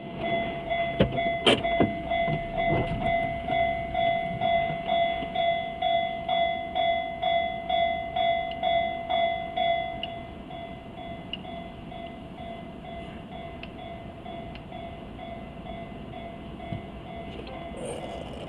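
Japanese railway level crossing warning bell clanging in a steady, even rhythm of about two strokes a second, then stopping about ten seconds in.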